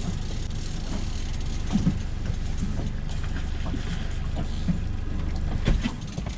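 Boat motor running steadily at trolling speed, a low drone, with a few light knocks on the hull or gear.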